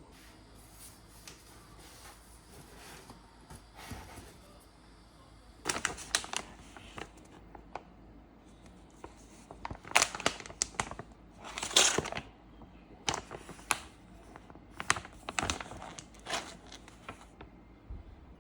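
Packaging being crinkled and torn by hand: faint rustling at first, then a run of irregular, louder crackles and rips from about six seconds in.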